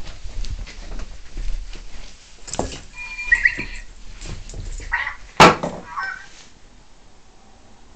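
Animal-noise toy ball being batted and rolled across the floor by a puppy: a scatter of light knocks and thumps, with short pitched electronic animal calls from the toy about three seconds in and again around five seconds in. A sharp loud knock comes about five and a half seconds in.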